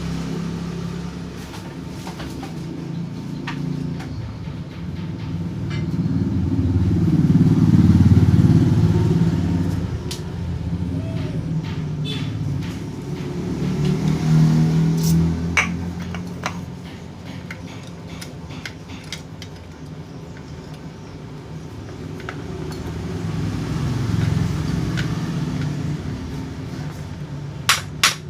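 Low engine rumble of passing road vehicles, swelling and fading three times, with scattered small clicks of metal parts being handled. Near the end a quick, even run of light hammer taps begins, about three a second.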